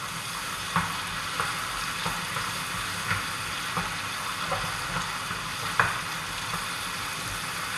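Prawns in a tomato sauce sizzling steadily in a frying pan on a gas hob, stirred with a wooden spatula that scrapes and taps lightly against the pan, the sharpest tap about six seconds in.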